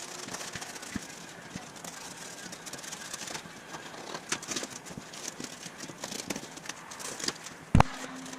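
Scattered clicks, crackles and rustles of material being handled at a workbench, with one sharp knock near the end followed by a faint steady hum.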